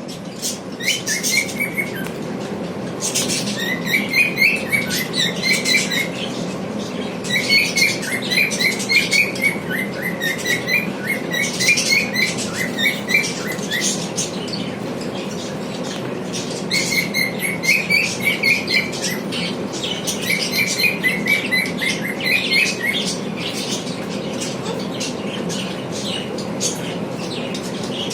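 Cockatiels and lovebirds chirping in bouts of rapid, repeated short calls, with pauses between bouts, over a steady low hum.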